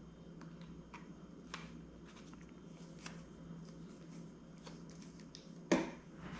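Faint handling of a plastic lemon-juice squeeze bottle, with small clicks and taps as its cap is put back on. Near the end there is a single sharp knock as the bottle is set down on the granite countertop.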